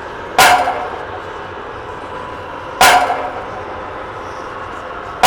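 A sharp struck sound with a short ring, repeated at an even pace about every two and a half seconds, over a steady low background.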